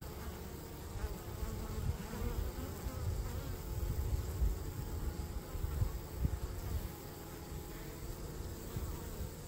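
Honeybees buzzing around a hive entrance, over a low, uneven rumble.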